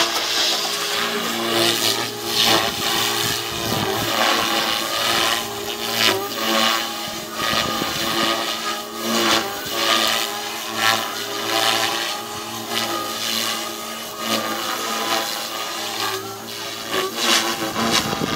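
Radio-controlled model helicopter flying overhead: a steady mechanical drone from its power unit and rotor, with repeated whooshing swells from the blades as it manoeuvres.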